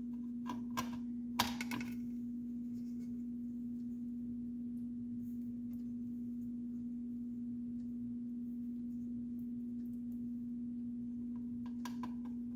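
A steady low hum, with a few light clicks and a short rustle in the first two seconds, loudest about a second and a half in, and a few fainter clicks near the end, as a small plastic packet and loose parts are handled on a workbench.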